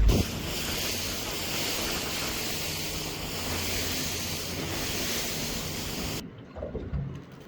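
Steady rush of sea water and wind from on board a boat on the water, an even hiss that cuts off abruptly about six seconds in and leaves a much quieter stretch.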